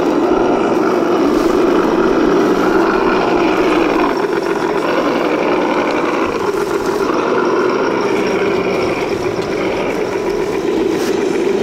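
Electric motor and geared drivetrain of a 1/10-scale RC Land Rover Defender 90 crawler whining as it crawls over an obstacle, the pitch rising and falling with the throttle, over a steady hum.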